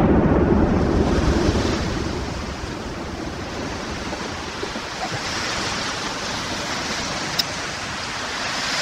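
A steady rushing noise, deeper and louder for the first two seconds and then evener, with one brief click near the end.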